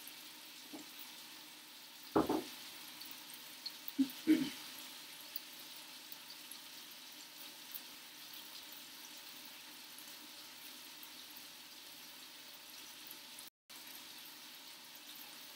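Boneless chicken thighs sizzling steadily as they brown in a frying pan, with a few brief louder low sounds about two and four seconds in.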